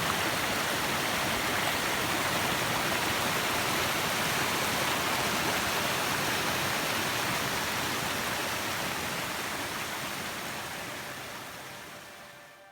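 Steady rush of flowing water that fades out over the last few seconds.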